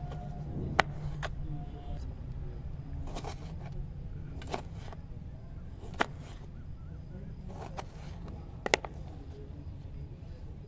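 Kitchen knife cutting tomatoes on a plastic cutting board: a few sharp knocks of the blade on the board at irregular intervals, the loudest about a second in and a double knock near the end, over a steady low hum.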